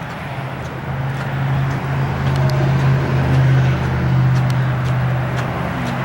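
A motor vehicle engine running steadily: a low, even hum that grows a little louder for a few seconds in the middle.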